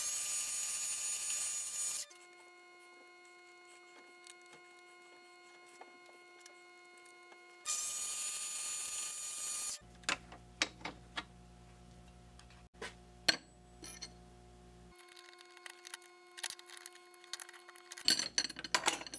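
A high-speed-steel four-flute end mill spinning in a mini lathe's chuck cuts indents into a brass thumbscrew head, twice. Each cut is a harsh, high hiss lasting about two seconds that starts and stops abruptly. Afterwards come scattered clicks and taps as the jig is loosened and turned in the tool holder, over faint background music.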